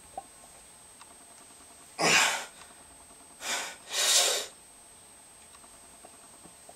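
A man's forceful breaths as he strains through a loaded squat: one hard blast about two seconds in, then two more in quick succession a second later.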